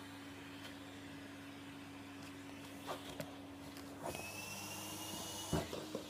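Vacuum cleaner running with a steady low hum. About four seconds in, a slightly rising whine and hiss set in as the nozzle is moved over the rag rug, with a few knocks and a thump near the end.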